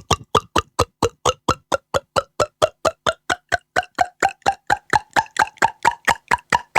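Beatboxer's mouth-made water sound effect: rapid, evenly spaced plops, about five a second, their pitch rising steadily like a glass filling with water.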